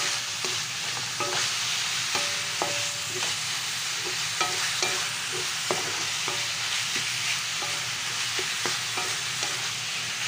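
Ground pork, tomato and onion sizzling in hot oil in a metal pan while being stirred, with a spatula scraping and tapping the pan about twice a second so that the pan briefly rings. This is the sauté stage, browning the ground pork thoroughly.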